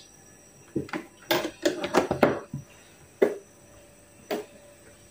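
Short knocks and clatter of kitchen handling around a wok on a gas stove as the cooking-oil bottle is put away: a cluster of clunks in the first half, then two single knocks.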